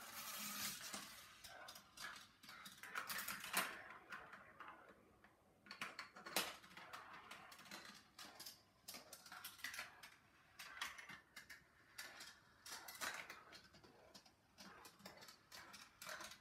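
Marbles rolling down the plastic rails of a GraviTrax marble run, with frequent light clicks and clatters as they pass through its switches and splitters and drop into the catcher; the sharpest clicks come about three and a half and six seconds in.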